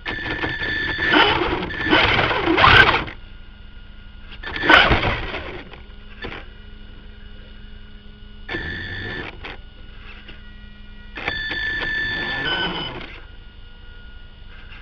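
Radio-controlled car's motor and gears whirring and whining in short spurts as it drives over grass, four or so bursts with quieter stretches between them that hold a faint steady hum.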